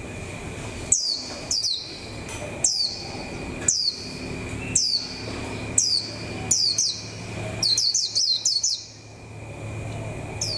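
Caged white-eye (vành khuyên) kept as a decoy bird, giving sharp, high chirps that drop quickly in pitch, about one a second, with a quick run of several together a little after the middle.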